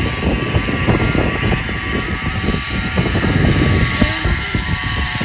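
Zip-line trolley running fast along the steel cable, with a steady whirring whine, while the wind rushes and buffets against the phone's microphone.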